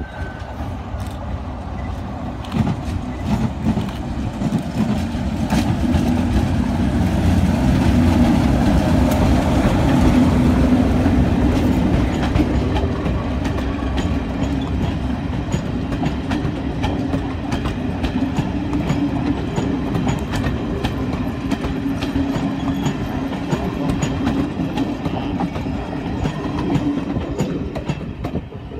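Class 37 diesel locomotive 37716 hauling a rake of coaches past: the English Electric V12 diesel engine is at its loudest a few seconds in as the locomotive goes by. The coaches' wheels then click steadily over the rail joints as they roll past, and the sound eases off near the end.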